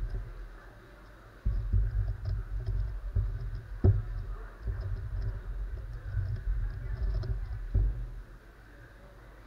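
Magnetic X-Man Galaxy sculpted megaminx being turned rapidly by hand in a speedsolve: plastic turning clatter in bursts, with a sharp click about four seconds in and another near the end. The turning stops briefly about a second in and again near the end.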